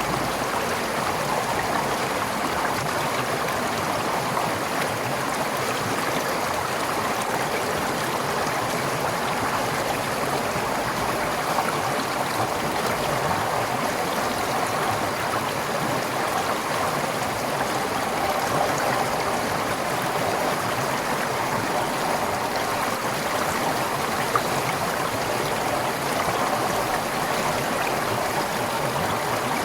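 Forest stream flowing over rocks, a steady rushing and gurgling of water.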